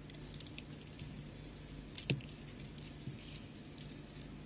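Beads on fishing line clicking and ticking lightly as they are handled and the line is worked tight, with one sharper click about two seconds in.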